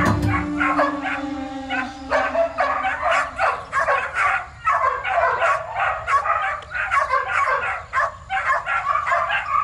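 A dog yipping and barking in quick, uneven bursts, several a second.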